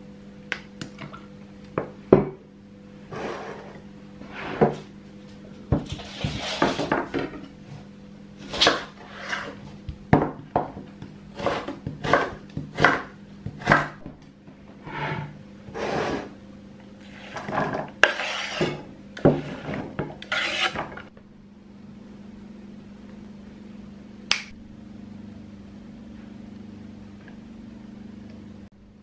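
Kitchen utensils knocking and scraping on a wooden cutting board and a frying pan: a long run of irregular knocks and short scrapes, then a steady low hum with a single click near the end.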